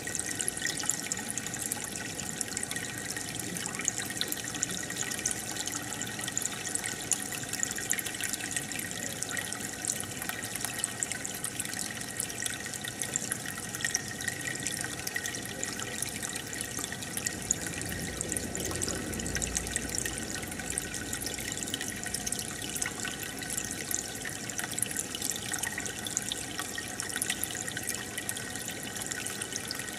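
Steady trickling and bubbling of aquarium water, with fine crackle from a stream of small bubbles and splashes.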